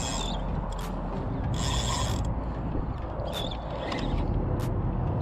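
Spinning reel being cranked, its gears turning as line is wound in on a hooked jack.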